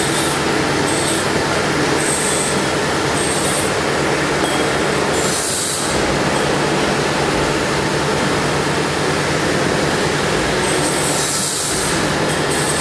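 Steady machine noise of a running motor: a constant low hum under an even hiss, holding the same level throughout.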